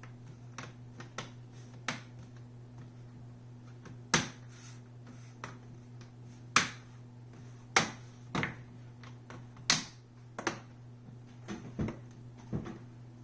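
Plastic screen bezel of an Acer Aspire ES1-531 laptop being pressed back onto the lid: about a dozen sharp clicks at uneven intervals as its clips snap into place, with a steady low hum underneath.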